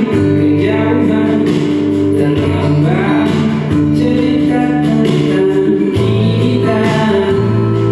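A recorded song with a singing voice and steady bass, streamed from a phone over Bluetooth through a Z4 audio mixer and played on a Transformer 12 portable speaker.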